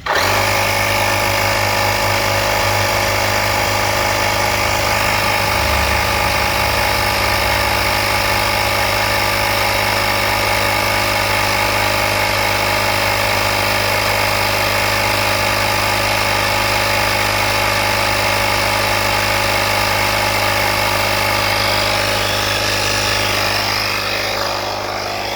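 Portable tire inflator's small electric air compressor switching on suddenly and running steadily at full load, a loud even drone, easing slightly near the end.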